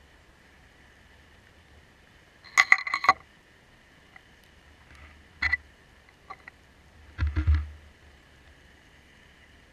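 Underwater sound at a reef camera: a faint steady high hum, broken by short clusters of sharp clicks and knocks, about three seconds in, again around five and a half and six seconds, and a louder cluster with a low thud about seven seconds in.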